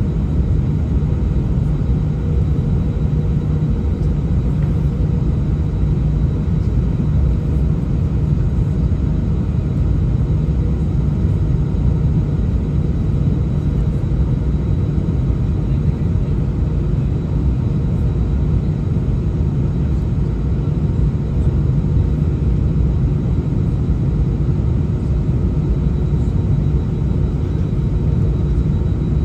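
Airbus A319's jet engines at taxi idle, heard from inside the cabin as a steady low rumble with a faint steady whine above it.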